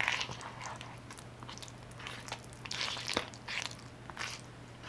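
Spoon stirring a thick paste of Aztec clay (calcium bentonite) and apple cider vinegar in a container: a run of irregular wet squelching, scraping strokes.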